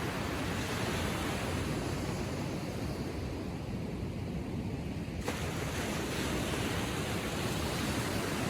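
Small ocean waves washing gently on the shore, a steady hiss of surf; the hiss thins out for a few seconds, then comes back suddenly about five seconds in as the next wave washes in.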